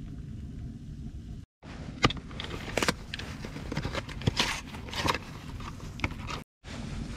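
A paper food box being torn open and a foil pouch pulled out and handled: irregular crinkling and rustling of paperboard and foil, with a sharp snap about two seconds in. A low steady rumble comes before it, in the first second and a half.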